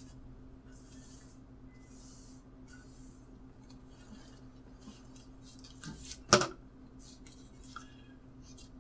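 Soft scrapes and rustles of a thin plastic bag being handled and marked out on a tray, with one sharp click about six seconds in, over a steady low electrical hum.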